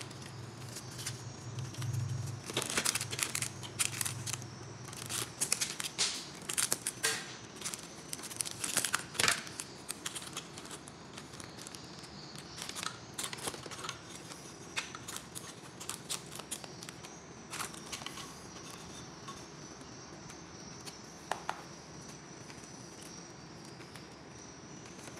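Hands working insulated electrical wires into a plastic wall box: a quick run of clicks, scrapes and rustles, busiest in the first ten seconds, then scattered clicks.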